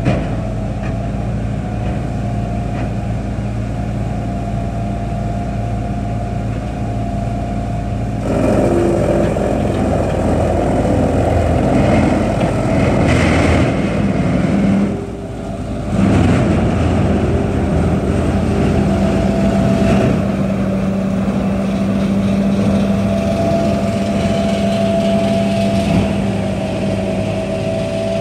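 Peterson 2400A horizontal wood grinder running, its diesel engine droning steadily. About eight seconds in, wood starts going through the grinder and the sound turns louder and rougher. It drops off briefly about halfway and then picks back up.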